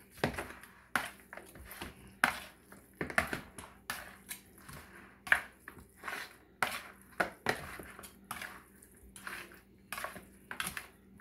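Metal fork clinking and scraping against a bowl in irregular strokes as seasoned oxtail pieces are tossed and coated.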